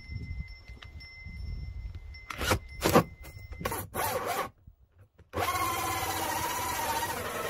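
Cordless drill driving a hole saw through house wrap into the wall's wood sheathing: a few short cutting bursts in the middle, a brief stop, then the drill running steadily under load, the saw grinding through the wood.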